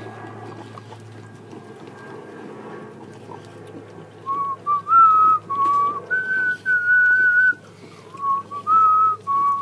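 A person whistling a tune in clear held notes, stepping up and down in pitch, beginning about four seconds in.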